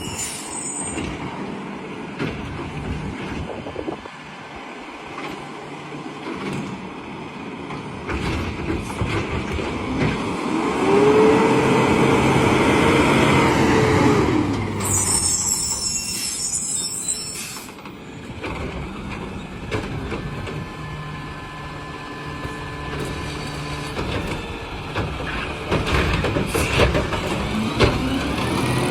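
Garbage truck working: its diesel engine runs and revs up from about 10 to 14 seconds in with a rising, held whine, then short sharp hisses of the air brakes about 15 seconds in.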